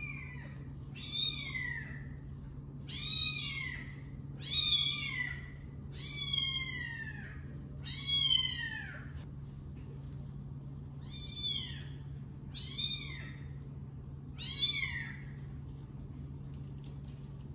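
A kitten meowing over and over: about nine high-pitched meows, each rising and then falling in pitch, coming every one to two seconds and stopping a few seconds before the end.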